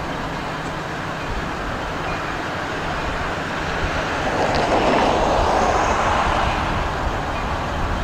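Escanaba & Lake Superior diesel locomotive 503 running light and rolling slowly toward the listener, its engine a steady low drone. The noise swells louder for a few seconds from about four seconds in.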